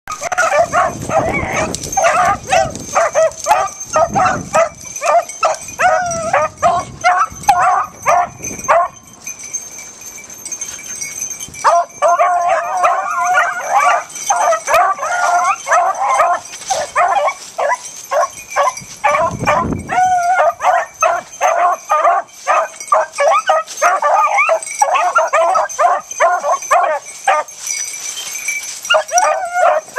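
A pack of beagles baying and yelping in a nearly unbroken stream of overlapping calls as they trail a rabbit. The calls ease off briefly about nine seconds in and pick up again a couple of seconds later.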